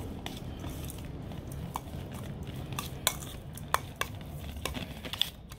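Metal spoon stirring chopped raw steak tartare mixture in a stainless steel bowl, with irregular light clinks of the spoon against the bowl.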